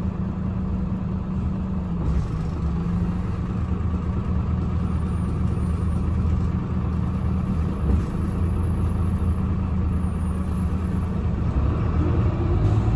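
Interior drone of an Irisbus Agora Line city bus with Voith automatic gearbox: the engine running steadily at low speed, a constant low hum heard from inside the passenger cabin.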